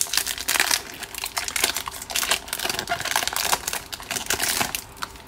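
Foil wrapper of a Topps baseball card pack crinkling as it is torn open and pulled off the stack of cards: a dense run of crackles that eases off near the end.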